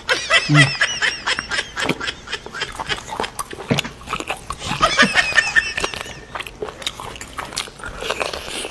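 Close-miked eating sounds: marrow being sucked and slurped from a cut marrow bone, with many wet lip smacks and clicks and two stretches of high, wavering squeaky slurping, one at the start and one around the middle.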